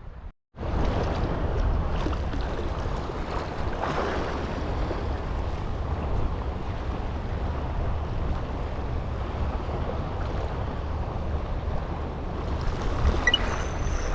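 Steady rushing of wind on the microphone and sea waves at the breakwater, starting after a brief silence about half a second in.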